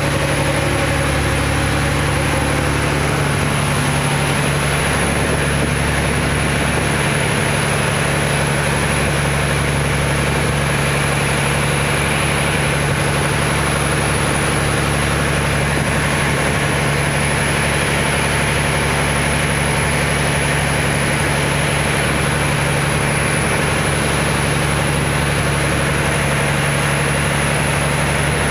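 Fishing trawler's inboard engine running steadily under way, a constant low drone with a broad rush of wind and water over it.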